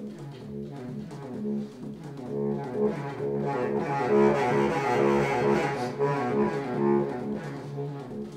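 Solo baritone saxophone playing a fast, repeating low riff. It swells louder and brighter around the middle, then eases back.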